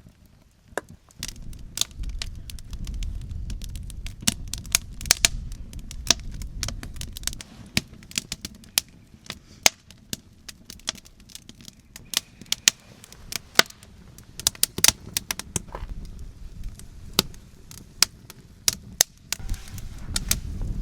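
Wood campfire crackling, with irregular sharp snaps and pops. A low rumble of wind on the microphone comes in the first several seconds and again near the end.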